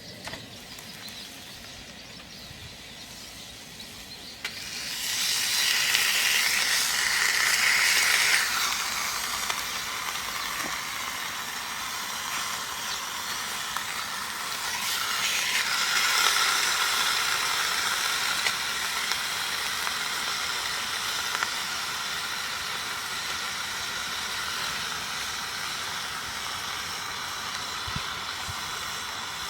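A steady hiss that starts about four and a half seconds in, loudest over the next few seconds, then easing and swelling again before settling.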